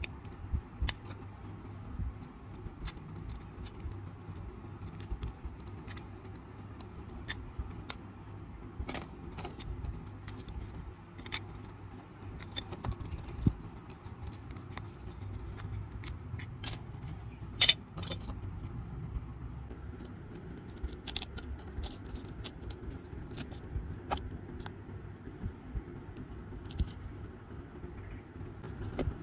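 Small tools and phone parts clicking and clinking against each other and a hard work surface, in irregular light taps, over a low steady hum.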